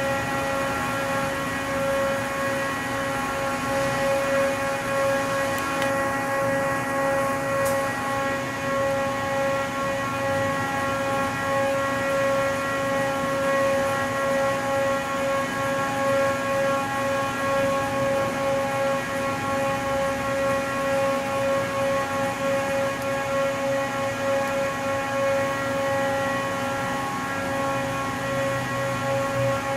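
Charmilles Roboform 55 CNC sinker EDM machine running, giving off a steady whine made of several pitched tones that hold unchanged throughout.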